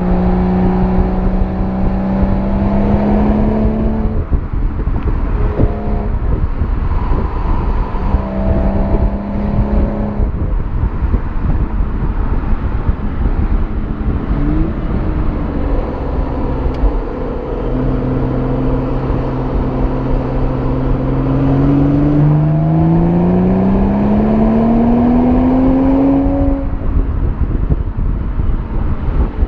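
BMW M340i's 3.0-litre turbocharged inline-six exhaust, recorded right at the tailpipe while driving in Comfort mode, under heavy wind and road rumble. The engine note rises in short pulls broken by pauses, settles to a steady lower drone, then climbs in pitch in one long pull of about four seconds near the end before dropping away.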